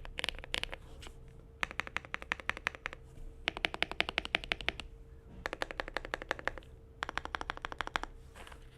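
Akko Mod007 PC mechanical keyboard with Smoothie V1 switches and Japan Sakura keycaps, modded with tape, foam and force-break, being typed on fast. The keystrokes come in about five quick runs of rapid clicks, each a second or so long, with short pauses between.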